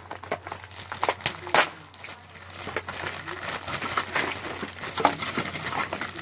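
Plastic toy packaging crinkling and crackling, with many sharp clicks of small plastic pieces being handled and pulled out.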